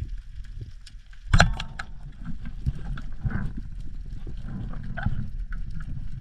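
Underwater sound picked up through a GoPro's waterproof housing in shallow surf: a steady low rumble of moving water with scattered sharp clicks, and one loud knock about a second and a half in.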